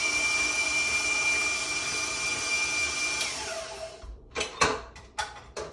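Electric stand mixer beating a thick peanut butter cookie dough, running with a steady high whine, then switched off about three seconds in and spinning down. A few sharp metal clanks follow as the mixer's steel bowl is handled.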